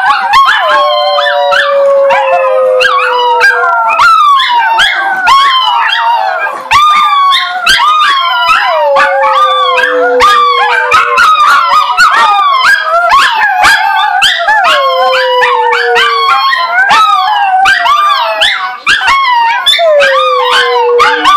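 Several small dogs howling together in a loud chorus of overlapping, wavering howls with sharp yips mixed in, carrying on without a break.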